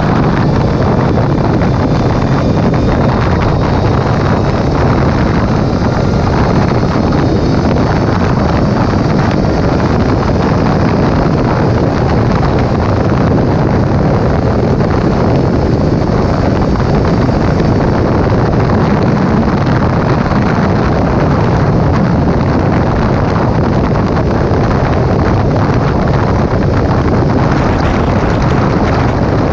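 Steady wind rush on the microphone of a motorcycle ridden at highway speed, with the bike's engine running evenly underneath.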